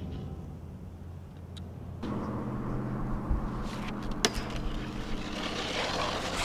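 Snowboard landing on a metal stair handrail with a sharp knock about four seconds in, then sliding along it with a rising scraping hiss, over a steady low engine hum.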